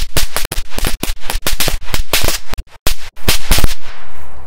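A machine-gun belt firecracker string going off: a rapid, irregular chain of sharp bangs, several a second, that stops shortly before the end and fades away.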